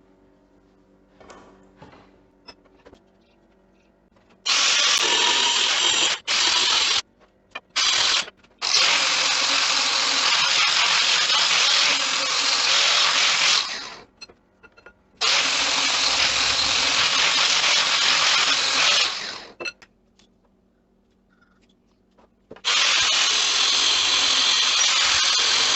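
Power tool run in repeated bursts of several seconds each, starting and stopping abruptly, with short quiet pauses in between.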